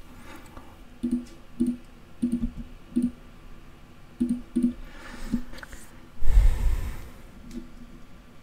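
A computer mouse clicking about nine times, singly and in quick pairs, with a brief louder rush of noise a little after six seconds in.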